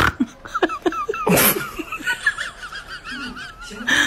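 Laughter in short pulses, with a sudden loud burst of breath-like noise about a second and a half in, over a high tone that wavers up and down.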